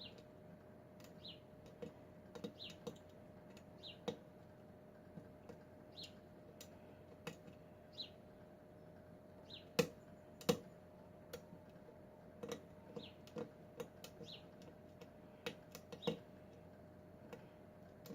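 Lock pick clicking and scraping on the pins inside a Kwikset pin-tumbler lock, in irregular light clicks with two sharper clicks about ten seconds in. The pins are not setting, which the picker takes for an overset pin.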